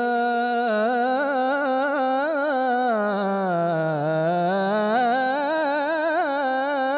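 A solo male voice singing Islamic devotional inshad, holding one syllable as a long melisma with quick wavering ornaments. The pitch slides down to a low point about four seconds in, then climbs back up.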